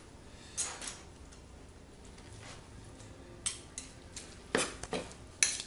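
Metal fork tines scraping and clicking on a cutting board as smoked pork is pulled apart. One stroke comes about half a second in, then a quiet stretch, then several quick scrapes in the last two seconds.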